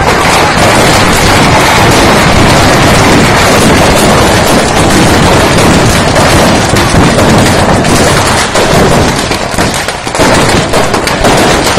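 Firecrackers exploding in a dense, continuous barrage of sharp bangs too rapid to count, very loud, easing briefly near the end before picking up again.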